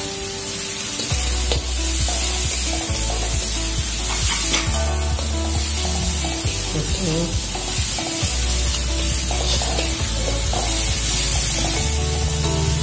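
Ground shallot-and-garlic spice paste sizzling as it is sautéed, with the scrape and clack of stirring against the pan, under background music.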